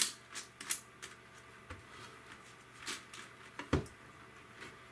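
Layers of a magnetic Yuxin Huanglong 17x17 cube being turned by hand, giving a string of scattered sharp clicks and clacks. The loudest click comes right at the start, and a heavier knock falls about three-quarters of the way through.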